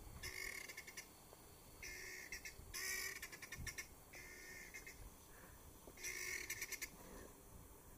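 Helmeted guineafowl calling: five bursts of harsh, fast rattling chatter, each a second or less long.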